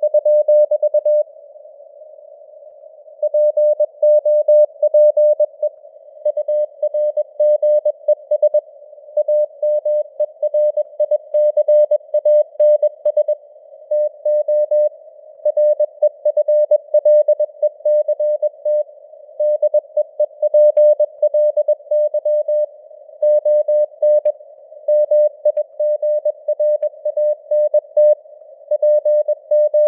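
Morse code (CW) at 21 words per minute: a single mid-pitched tone keyed on and off in dots and dashes over a hiss of simulated radio noise. The signal strength drifts up and down with simulated fading (QSB).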